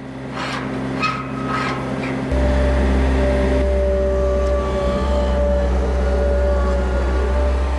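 Mustang 2044 skid-steer loader's engine running. About two seconds in it is throttled up: louder, with a steady higher whine on top. A few knocks come in the first two seconds.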